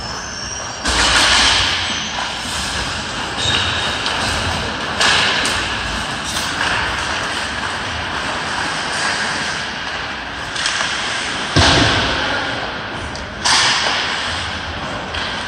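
Ice hockey play: a steady scrape of skate blades on ice, broken by several sudden loud scrapes and bangs from skates, sticks and puck, with a heavy thud about twelve seconds in.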